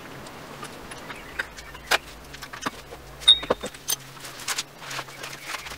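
Metal hand tools and parts clinking and clicking under a raised car during an oil and filter change: a string of sharp irregular knocks, the loudest a short ringing metallic ping about three seconds in.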